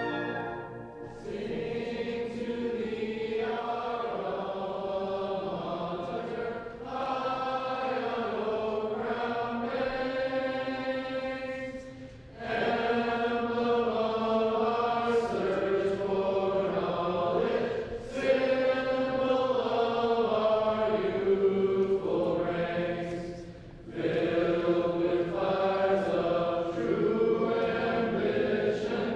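A group of voices singing a slow university hymn in long held phrases, each a few seconds long, with short breaks for breath between them.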